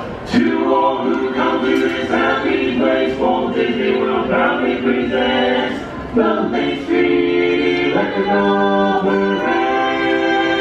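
A group of voices singing in harmony, holding long chords that change every second or so.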